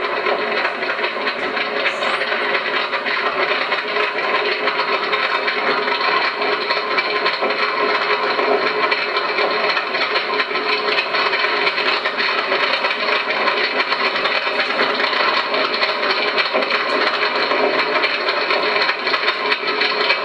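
Fire-training simulator playing its fire sound effect through its speaker: a steady crackle and hiss like a burning fire.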